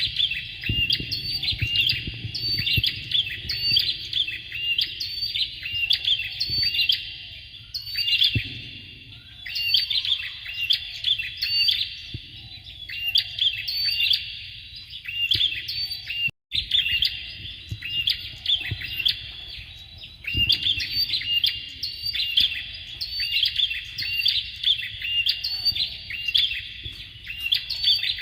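Bar-winged prinia calling: rapid runs of sharp, high chirps repeated in phrases of a few seconds, with a momentary break about halfway through.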